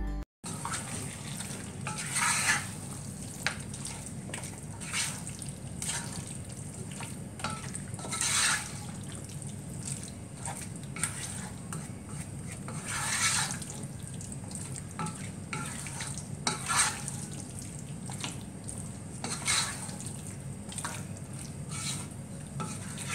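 Wooden spatula stirring and turning chicken pieces through wet masala in a nonstick pot, with a short scrape or squelch every one to three seconds over steady frying and a low hum.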